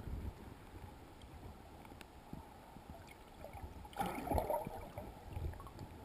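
River water heard through an action camera held underwater: a faint, even rush of current, with a brief louder swirl of water about four seconds in.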